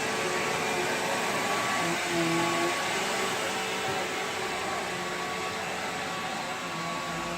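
Bissell PowerGlide Platinum bagged upright vacuum running steadily, a continuous motor and airflow noise with a few steady tones in it that shift briefly about two seconds in and again near the end.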